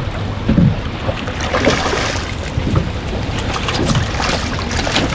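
Strong wind buffeting the microphone on an anchored small boat, over the wash of rough water, with scattered short knocks.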